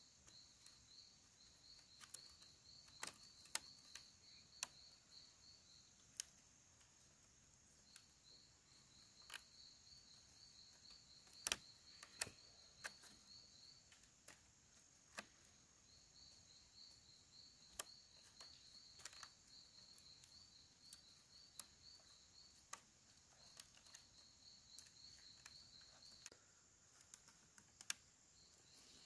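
Faint insects chirping in long pulsed trains of a few seconds each, with short gaps, over a steady high insect hiss. Irregular sharp clicks and taps come throughout, the loudest about halfway through.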